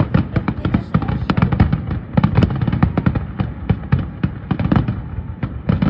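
Fireworks display: aerial shells bursting in a rapid, unbroken string of bangs, several a second.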